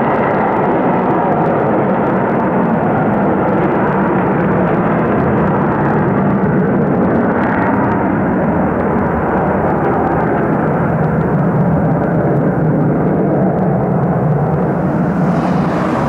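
Boeing 727-200's three Pratt & Whitney JT8D low-bypass turbofans roaring at takeoff thrust as the jet climbs away, a steady, deep rumble.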